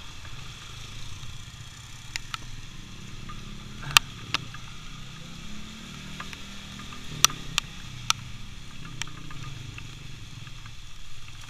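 Motorcycle engine running steadily as the bike rides along, heard from the rider's seat. Several sharp clicks or knocks cut through it, the loudest about four seconds in and twice about seven seconds in.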